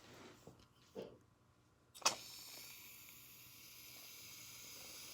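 Aerosol can of shaving cream spraying: a short bump and a couple of small handling knocks, then a sudden start about two seconds in and a steady high hiss as the foam is dispensed.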